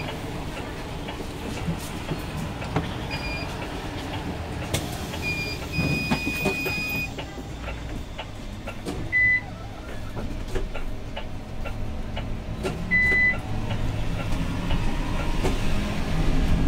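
Interior ride noise of a Zhongtong LCK6113SHEVG city bus: a steady low rumble of the drivetrain and road. Several short high electronic beeps sound at intervals, one held for about a second around six seconds in.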